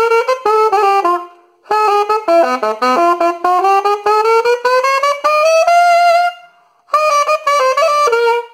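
Alto saxophone playing a short phrase of quick notes, then after a brief pause a long rising chromatic scale on D that climbs for about four seconds, then after another pause a closing phrase.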